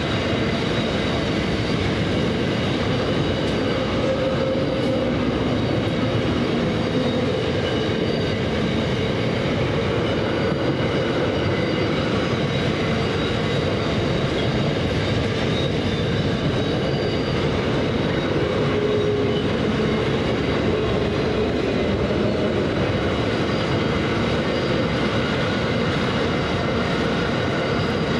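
Container freight train's wagons rolling past in a steady, unbroken rumble of steel wheels on rail, with faint high wheel-squeal tones over it.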